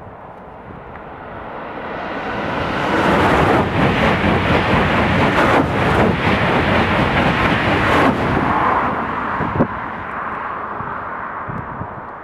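High-speed train passing at speed: a rush of wheel, rail and air noise that swells over about two seconds, holds for about five seconds as the trainset goes by, then fades. There is a single sharp crack about nine and a half seconds in.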